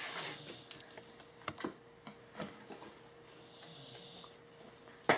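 A few light clicks and taps from objects being handled on a table, with one sharp, louder click near the end.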